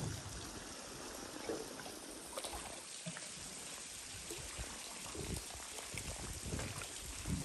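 Calm sea water lapping and trickling against the rocks at a cliff foot, with small irregular splashes and gurgles.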